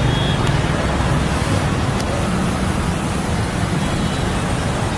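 Steady street traffic noise at low speed: the engines and tyres of a car, motorbikes and auto-rickshaws passing close by.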